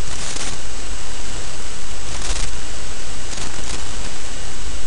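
Loud steady hiss with a low hum beneath it: the noise floor of a noisy voice-over microphone. A few brighter hissy puffs, each about half a second long, come at the start, a little over two seconds in and again around three and a half seconds.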